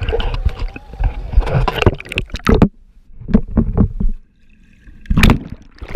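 Pool water splashing and sloshing close around a camera held at the water's surface, in uneven bursts, with gurgling as it dips under. The splashing drops away briefly about four seconds in, then one more burst near the end.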